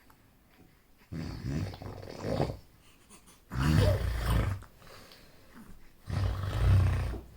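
Snoring: three loud, low, rough snores about two and a half seconds apart, each lasting about a second.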